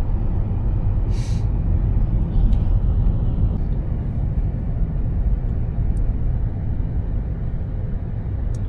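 Steady low rumble of a car driving: road and engine noise, with a short hiss about a second in.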